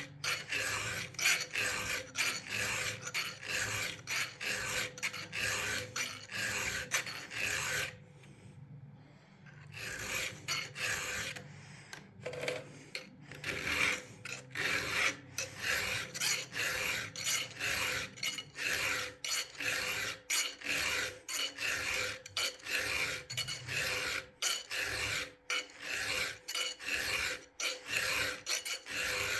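Chainsaw chain being hand-sharpened with a file, rasping strokes repeating about twice a second, with a short pause about a third of the way through.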